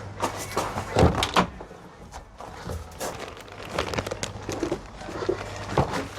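Several knocks and thuds of things being handled, the loudest cluster about a second in, over a low steady hum that drops out for a couple of seconds after them.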